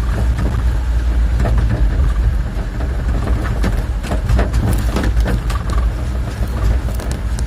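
Diesel engine of heavy construction machinery running steadily, with irregular short knocks and scrapes over it, most of them in the middle of the stretch.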